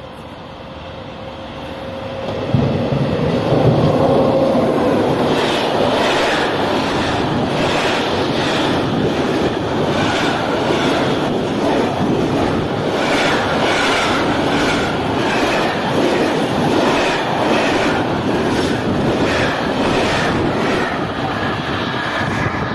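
Freight train passing close by: the sound builds over the first two seconds or so as it arrives, then the wagons roll past with a long, steady run of rhythmic wheel clatter.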